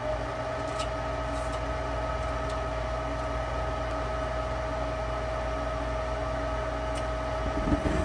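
A furnace blower motor running at steady speed: an even hum with a constant whine.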